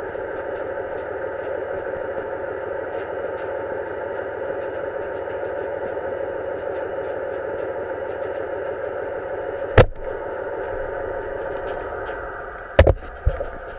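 Steady underwater noise picked up through a diving camera's housing, with a single sharp knock about ten seconds in and two more near the end.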